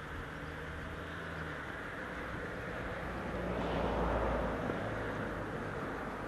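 Low engine drone of a passing motor, swelling to its loudest about four seconds in and then easing off.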